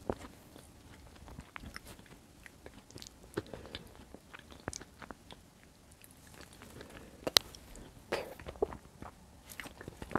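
Close-miked chewing of bread and white beans in tomato sauce, with scattered soft wet mouth clicks. A single sharp click about seven seconds in is the loudest sound.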